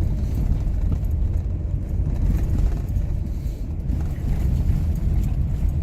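Steady low rumble of a vehicle driving, heard from inside the cab: engine and road noise.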